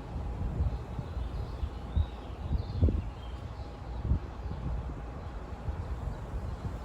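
Outdoor nature ambience: wind buffeting the microphone in uneven low rumbles and thumps, with a few faint bird chirps.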